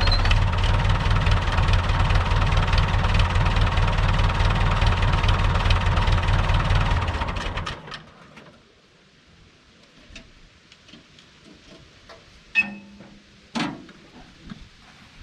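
Long 560 DT tractor's diesel engine running steadily, then shut off and winding down about seven seconds in. A couple of sharp metal knocks follow near the end.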